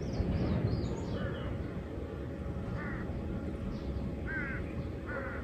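Birds calling: several short, wavering calls, some higher and thinner than others, over a steady low background rumble.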